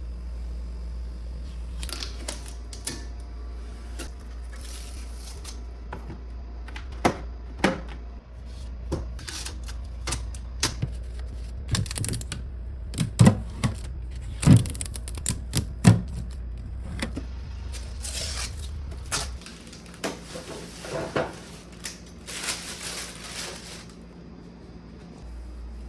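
Irregular clicks, taps and knocks of objects being handled, over a low steady hum that cuts out about two-thirds of the way through.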